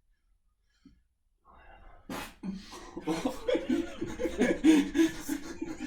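Laughter breaking out about two seconds in and carrying on in rapid, uneven bursts.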